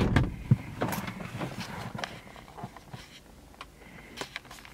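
Handling noise as someone climbs into a car's passenger seat: a sharp knock at the start, then scattered small clicks, knocks and rustling that fade away.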